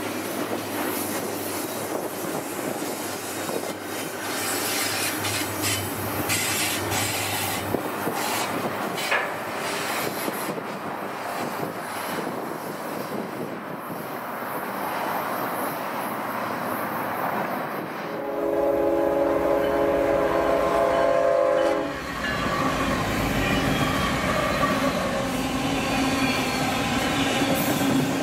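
Freight train rolling past with steady wheel noise and rail clicks. About two-thirds through, a diesel locomotive's multi-chime air horn sounds one long blast lasting a few seconds, followed by the heavy rumble of the train running at speed.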